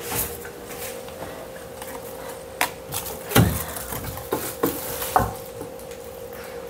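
Several light knocks and clatters of kitchen items being handled, bunched in the middle, over a steady hum.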